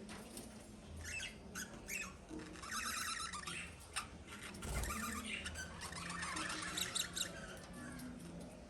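Pet lovebirds chirping and chattering in quick, high-pitched runs of short calls, with a faint steady low hum underneath.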